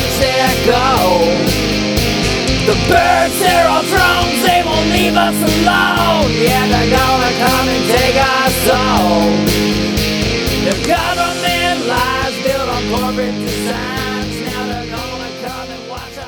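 Rock band playing an instrumental outro: a lead guitar line with bending notes over bass and drums, fading out over the last few seconds.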